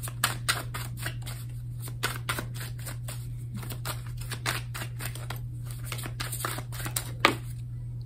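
A deck of tarot cards being shuffled by hand, giving a run of quick, irregular soft card clicks a few times a second, with one sharper snap near the end.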